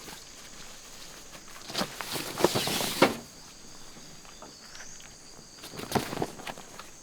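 Footsteps crunching and rustling through dry forest leaf litter, in two short bouts of several steps each.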